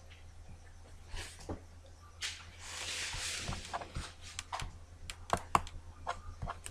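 Scattered clicks of a computer mouse and keyboard, coming more often in the second half, with a soft hiss lasting about a second near the middle and a steady low hum underneath.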